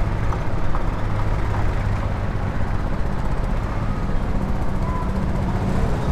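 Motor scooter's engine running steadily under way, a low even hum over road and traffic noise.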